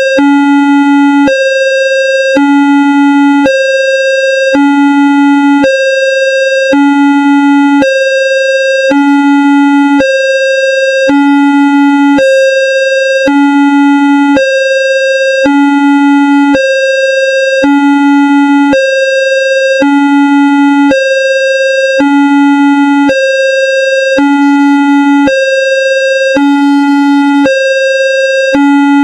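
Electronic railway level-crossing alarm in the Indonesian style, a homemade synthesized version, sounding continuously. It alternates between a low tone and a higher tone, each held for about a second.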